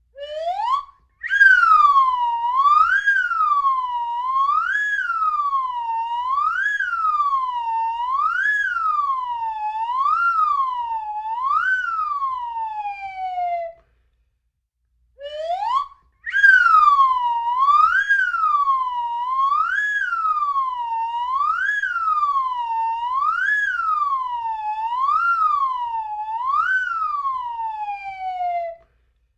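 Slide whistle played in two long runs. Each run opens with a quick upward slide, then swoops up and down about once every two seconds, seven times, and ends with a slow slide downward. A short silence falls between the runs, about halfway through.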